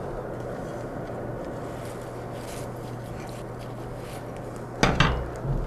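Steady rushing noise with a low hum at a blacksmith's coal forge as the fire is worked and brought back up to heat, then a few sharp clanks of iron tools about five seconds in, the loudest sounds.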